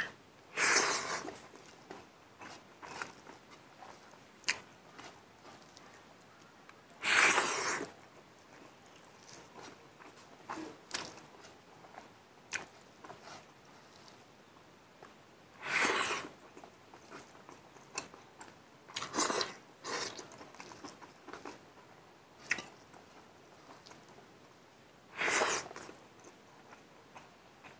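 Close-up mukbang eating sounds: a man chewing mouthfuls of rice and mustard greens eaten by hand, with small wet clicks and smacks. About five louder, noisier mouth sounds about a second each stand out, roughly every six to nine seconds.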